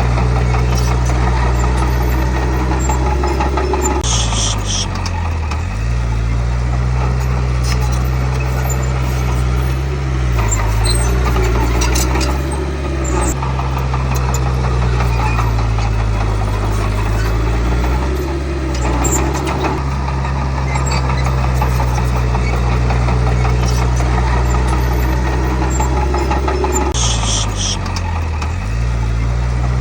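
Komatsu D31P bulldozer's diesel engine running continuously, its pitch dipping briefly several times as it takes load. A short high squeal comes twice, about four seconds in and near the end.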